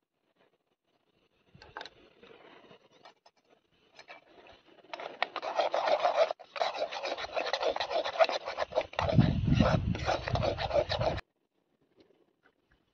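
Metal tongs scraping and rubbing against a small frying pan: faint scratching at first, then a dense, rapid scraping from about five seconds in that cuts off abruptly near the end, with a deeper rumble under its last two seconds.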